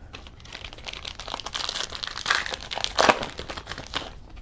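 A plastic trading card pack wrapper being torn open and crinkled by hand, a dense run of crackling and rustling with a couple of louder crackles in the middle.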